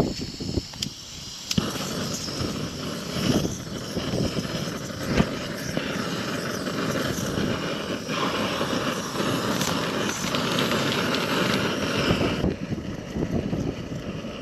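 Camping gas stove burner running with a steady hiss, with wind gusting over the microphone; the burner starts about a second and a half in and cuts off suddenly near the end, with a few clicks and knocks around it.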